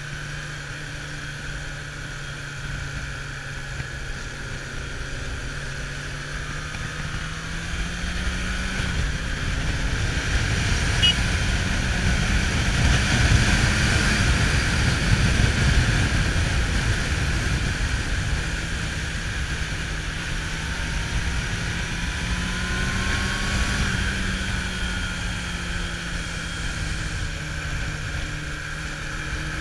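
Kawasaki Zephyr 750's air-cooled inline-four engine running on the move, heard from the rider's seat. Its note rises a little about eight seconds in and again briefly past twenty seconds. Wind noise on the microphone is loudest through the middle.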